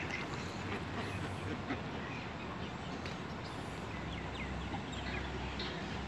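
Mallards and white domestic ducks quacking softly now and then, over a faint steady outdoor background hiss.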